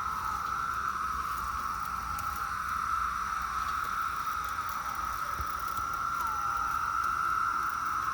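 A swarm of cicadas calling together in one steady, unbroken drone, with a couple of single calls sliding down in pitch standing out, about two seconds in and again near the end.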